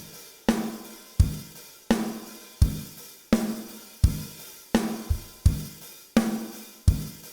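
Recorded acoustic drum kit playing a steady groove, kick and snare hits landing about every 0.7 s under cymbals and hi-hat, played back through an EQ with a low-end boost.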